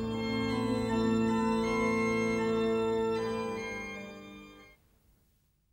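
Organ music holding sustained chords, fading out and ending just under five seconds in.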